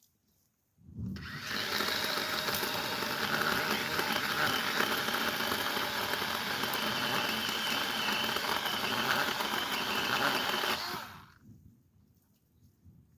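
A power saw running steadily for about ten seconds as it cuts wood into chunks, cutting in about a second in and stopping near the end.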